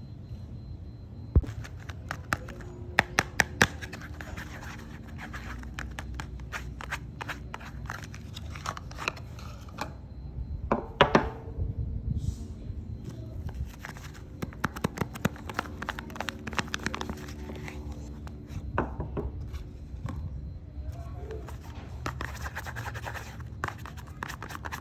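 Close-up handling of bars of soap: sharp taps and knocks, a cluster of them about three seconds in and a loud one near the middle, between stretches of scratching.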